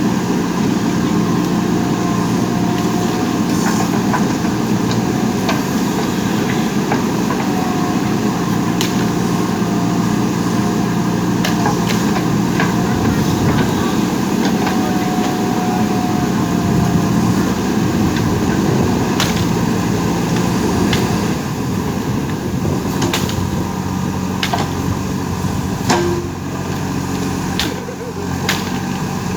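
JCB 3DX backhoe loader's diesel engine running steadily, with scattered sharp knocks from the work.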